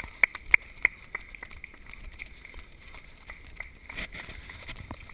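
One person clapping hands steadily, about three claps a second. The clapping stops about a second in, leaving only faint scattered ticks.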